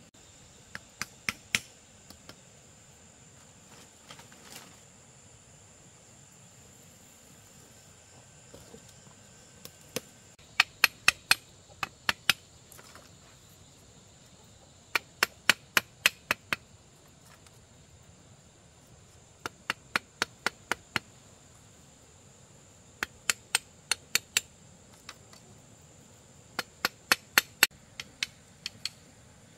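Repeated sharp strikes in bursts of four to eight, about three or four a second, with a pause of a few seconds between bursts. A faint steady high-pitched tone runs underneath.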